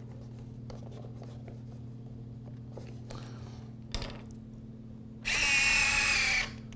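A few faint clicks of a small hex driver tightening the wheel collar, then about five seconds in an E-flite electric retract unit runs for just over a second, a high geared-motor whine, as the landing gear swings out.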